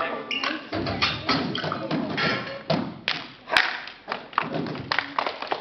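Juggling balls thudding and tapping in a run of irregular knocks, with one sharper knock about three and a half seconds in.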